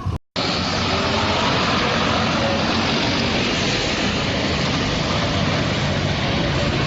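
4YZ corn harvester engine and machinery running steadily, after a brief drop-out at the start.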